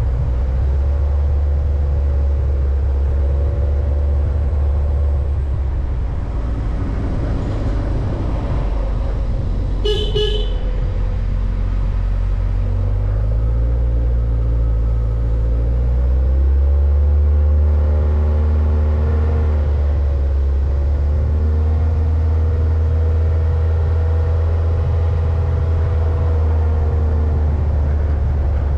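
A road vehicle's engine runs steadily under load, its note rising and falling with the revs on a mountain road. About ten seconds in, a horn gives one short toot.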